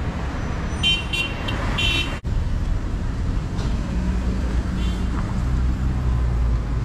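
Small camper van driving on city streets, a steady low engine and road hum heard from inside. About a second in comes a quick series of short, high-pitched toots, like a horn or electric beeper from nearby traffic.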